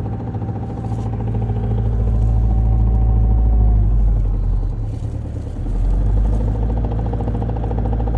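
Car engine running with a knock in it, the engine note swelling, dropping away about five seconds in, then picking up again. The knock comes and goes with engine speed, showing up at around 1,500 to 2,000 rpm.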